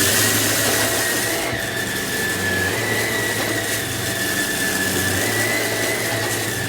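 Samsung CycloneForce upright vacuum running steadily while cleaning, its motor's high whine stepping slightly up and down in pitch a few times over an even rushing hiss.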